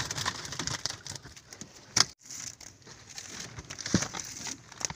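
Rustling and crackling from handling a nylon net bag full of fish, with scattered small clicks and two sharp knocks, about two and four seconds in.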